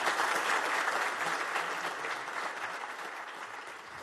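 Audience in a lecture hall applauding, loudest at first and gradually dying down.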